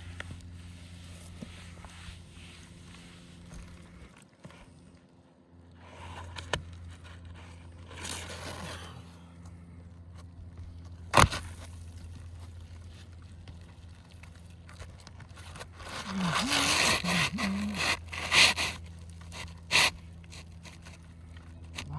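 Roof shingles being handled and scraped against the roof, in short rustling, scraping stretches, with one sharp click about halfway through.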